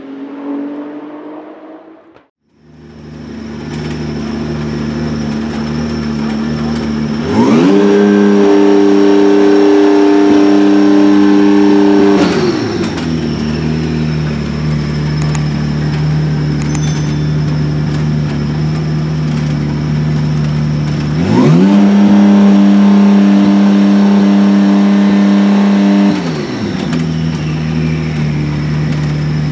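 BMW M4 GT3's P58 3.0-litre twin-turbo inline-six idling, stationary, with a thin high whine over it. It is twice raised quickly to a steady higher rpm, held for about five seconds each time, then dropped back to idle, the way a race engine is held up during warm-up. A car passing on the track fades out in the first two seconds.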